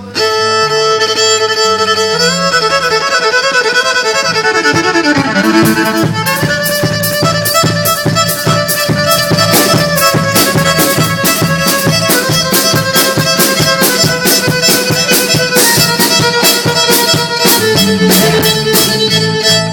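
Fiddle playing a country tune, with held notes and sliding runs, over band backing with a bass line. A steady drum beat joins about six seconds in.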